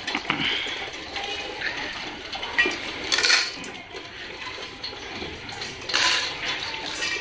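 Stainless steel dog bowls clattering and scraping on a tiled floor as dogs eat from them and more bowls are set down, with louder clanks near the start, about three seconds in and about six seconds in.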